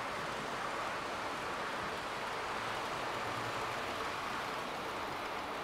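Model locomotive hauling a ten-coach train along the layout track: a steady, even whirring rumble of the wheels on the rails and the loco's motor.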